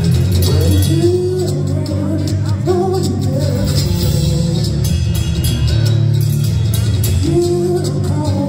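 Loud live band playing thrash grass, a mix of thrash metal and bluegrass: drums, bass guitar, acoustic-electric guitar and banjo, with a man singing over it.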